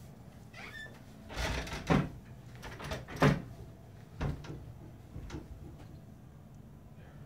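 About four short knocks and bumps over a steady low hum, the loudest about three seconds in.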